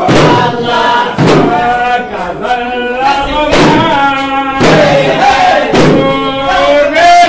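A group of men chanting together in unison, a sustained and bending melody, cut by heavy thumps that sound roughly every second or so.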